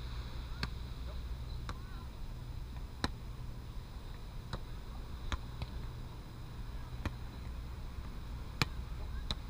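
A ball struck back and forth in a game: sharp clacks at uneven intervals, about eight in all, over a steady low rumble.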